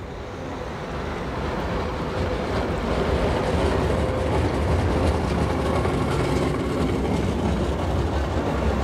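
Tram approaching and passing close by: running noise of steel wheels on rails with a low rumble, growing louder over the first few seconds and staying loud as the cars go past.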